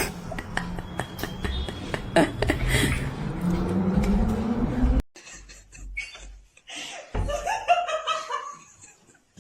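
Scattered knocks and noise, then after a sudden cut a person laughing in short broken bursts.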